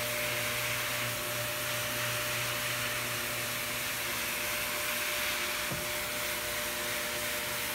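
Single-disc rotary floor buffer running steadily, its pad spreading a thin coat of hardwax oil (Rubio Monocoat) over rough reclaimed softwood boards. A constant motor hum with a steady tone over an even whir from the pad.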